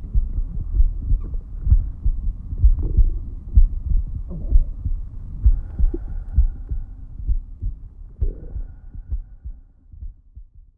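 Soundtrack under the closing cards: deep, irregular thumps with faint held tones above them, fading out near the end.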